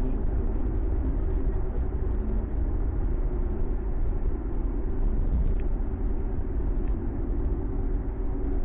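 Ford Mustang cruising at speed, heard from inside the cabin: a steady engine drone over a low road and tyre rumble.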